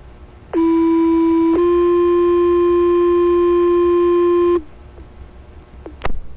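Two-tone sequential fire pager alert tones over a dispatch radio channel, received on a Baofeng UV-5R handheld scanner: a steady tone lasting about a second, then a slightly higher tone held about three seconds. The tones set off the station's pagers ahead of the spoken dispatch call. A short radio click near the end.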